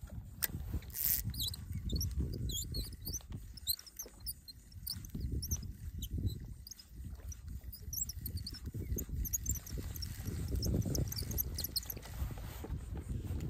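Gusty low rumble of wind and water around a kayak, with many faint, short high-pitched chirps scattered over it and a brief hiss about a second in.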